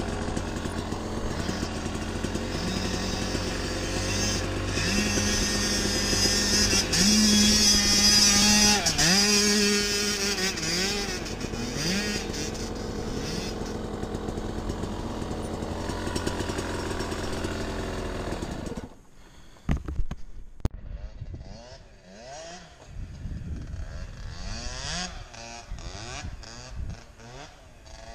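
Kawasaki two-stroke dirt bike engine heard from the rider's seat, revving up and down as it is ridden through the gears, loudest about seven to ten seconds in. About nineteen seconds in the sound drops away suddenly, after which a quieter engine rises and falls in pitch again and again, with a few sharp knocks near the drop.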